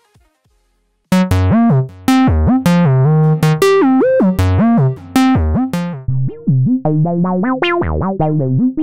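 Electronic title music: a keyboard melody of short notes that slide up and down in pitch, starting after about a second of silence.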